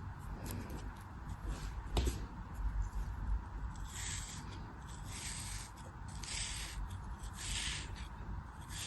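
A knife cutting through a soft, crumbly block: a sharp click about two seconds in, then four scraping strokes about a second apart.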